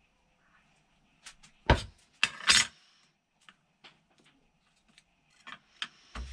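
Steel clinking, knocking and scraping against a bench vise and workbench as a tempered knife blank made from saw-blade steel is worked to take out a slight warp. There are two loud knocks, about a second and a half and two and a half seconds in, the second drawn out into a short scrape, then light clicks and another knock near the end.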